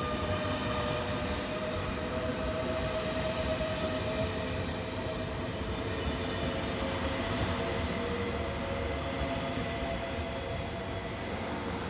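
Frecciarossa 1000 (ETR400) high-speed electric train running past, a steady whine over the rumble of its wheels on the rails.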